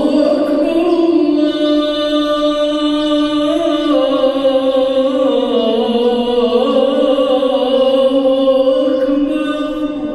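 A single voice chanting one long, drawn-out phrase, its held note stepping down in pitch about halfway through and rising again before it fades at the end.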